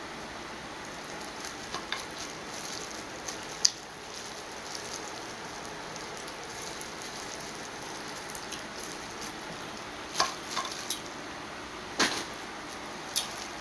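Close-up eating sounds of a seafood boil: plastic-gloved hands pulling apart sauce-coated shellfish and chewing, with a handful of short sharp cracks and snaps of shell, heaviest near the end, over a steady hiss.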